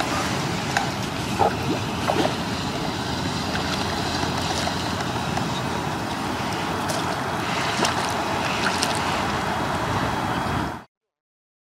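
Steady wind noise buffeting the microphone, with a few faint knocks, cutting off abruptly to silence near the end.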